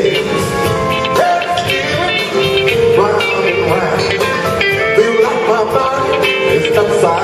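Soul-blues band playing, with a guitar line of bent and wavering notes over the rhythm section.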